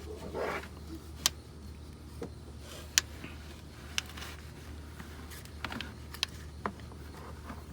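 Scattered sharp clicks and clinks of a 10 mm socket and hand tools knocking against metal in a cramped engine bay, with a few short scrapes, over a steady low hum.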